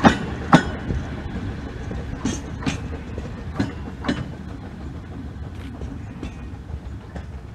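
Narrow-gauge train's wheels clicking over the rail joints in pairs as it runs away into the distance, the clicks and the low rumble fading steadily.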